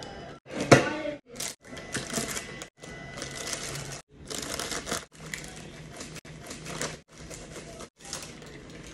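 Parchment paper crinkling and rustling as it is handled and peeled off a baked brownie, with a sharp knock about a second in. The sound comes in short pieces broken by brief gaps of silence.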